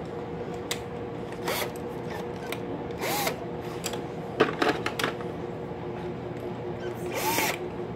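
Power drill motor running steadily, spinning a pencil crayon in a handheld pencil sharpener, with a few short scraping and knocking sounds, the loudest near the middle. The motor's pitch drops a little about four and a half seconds in.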